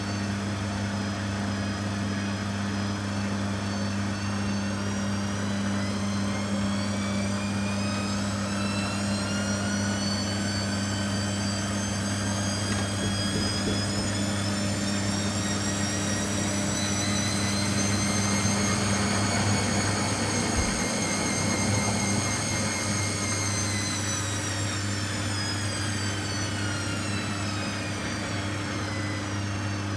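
Beko WTG620M1 washing machine spinning: the motor whine climbs steadily in pitch for about 18 seconds as the drum speeds up, holds at top speed for several seconds, then falls away as the drum slows. A steady low hum runs underneath.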